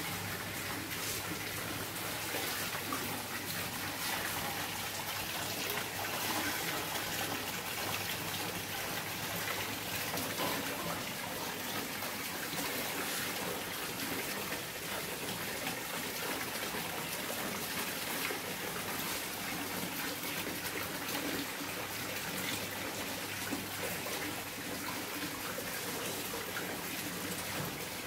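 Water falling steadily from a small artificial rock waterfall into a garden fish pond.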